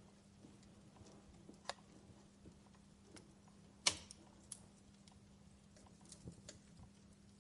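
Fireplace crackling faintly: scattered small pops and clicks at irregular intervals, with one sharper pop about four seconds in, over a low steady hum.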